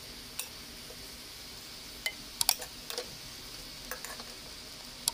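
A metal spoon clinks and scrapes against a metal cooking pot, about a dozen sharp clicks scattered through, while rice is spread over biryani masala. A steady sizzle from the pot runs underneath.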